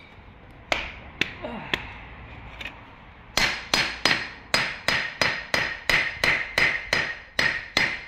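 Concrete block being tapped down onto its mortar bed with a metal hand tool. A few scattered knocks come first, then from about three seconds in a steady run of sharp, ringing knocks, about four a second.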